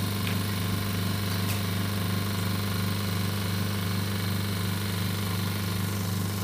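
Vacuum pump running steadily, a low even hum with a light regular pulse, as it pulls vacuum in a 2-in-1 OCA laminator and bubble remover during the extraction stage before lamination.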